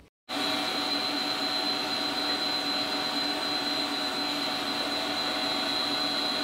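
Electric stand mixer running steadily at constant speed, beating frosting in its metal bowl: an even whir with a high whine over it, starting abruptly just after the start.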